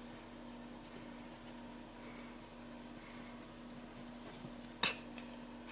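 Faint rustling and scratching of young puppies shifting on a cloth blanket, over a steady low hum, with one sharp click a little before the end.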